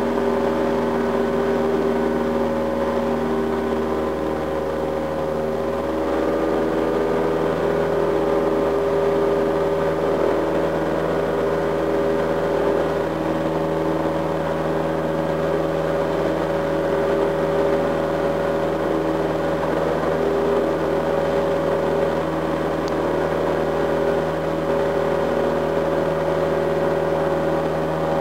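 Single-engine light aircraft's piston engine and propeller droning steadily in cruise, heard from inside the cockpit. The pitch shifts slightly about five seconds in.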